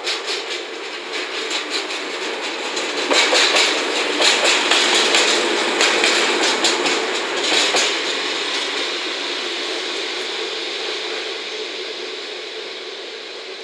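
A JR DE10 diesel-hydraulic locomotive running light past close by, its diesel engine running. Its wheels click rapidly over the rail joints, loudest from about three to eight seconds in, and the sound then fades as it moves away.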